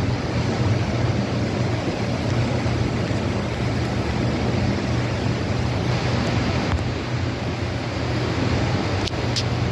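HO scale model trains running on the layout: a steady rumble with a constant low hum, and a few faint clicks near the end.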